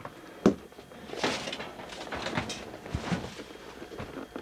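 A sharp knock, then rustling scrapes and a few small clicks as a wooden broom handle is worked behind a washing machine.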